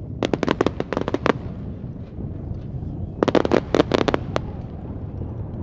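Aerial fireworks bursting in two quick volleys of sharp cracks, each volley about a second long and a couple of seconds apart, over a steady low background noise.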